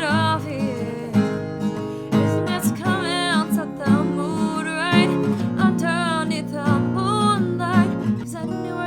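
Background music: an acoustic guitar strummed in steady chords while a woman sings a slow melody over it.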